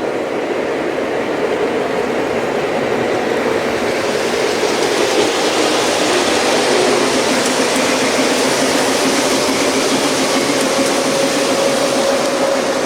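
Model trains running on the layout: a steady rumble and hum of small motors and wheels on track. It grows louder and brighter about four seconds in.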